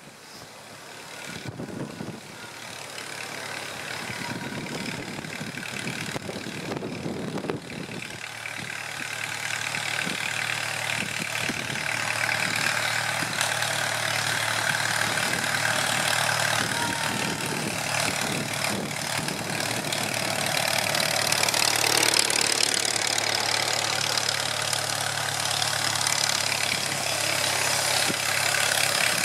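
Allis-Chalmers B tractor's four-cylinder engine running steadily as the tractor drives up, growing louder over the first dozen seconds and then staying loud close by.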